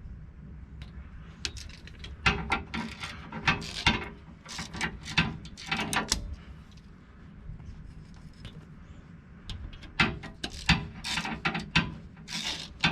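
A 3/8-inch drive socket ratchet on an extension clicks in quick strokes as it backs out an 8 mm bolt on the front driveshaft's U-joint. The clicking comes in two runs, one starting about two seconds in and the other about ten seconds in, with a lull between them.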